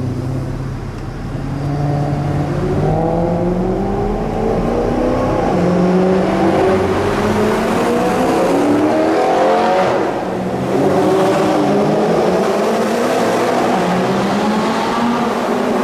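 Sports car engine accelerating hard in a road tunnel, its pitch climbing, dropping sharply about ten seconds in, then climbing again.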